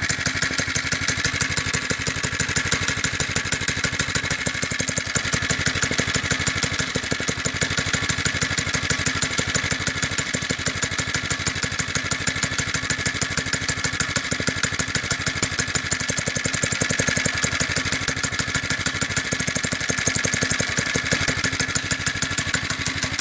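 Doodle Bug DB30 minibike's small four-stroke engine idling steadily with even firing pulses. The centrifugal clutch has just been oiled and no longer grabs at idle.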